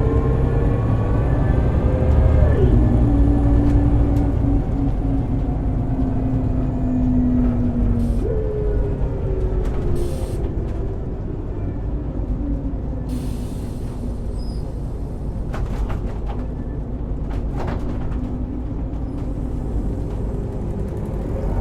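ZF Ecomat 5HP600 automatic transmission and driveline of a 1999 Scania L94UB city bus whining under way. The pitch climbs, then drops sharply at an upshift about two and a half seconds in. Near eight seconds the whine jumps up and falls away as the bus slows, with short hisses and clicks after that.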